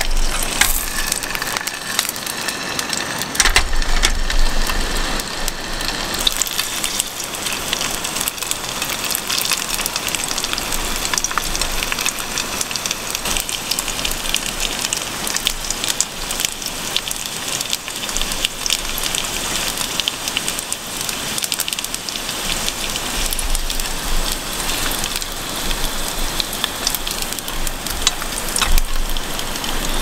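Dumplings frying in oil in a nonstick pan: a steady crackling sizzle, with now and then a tap of chopsticks as they are turned.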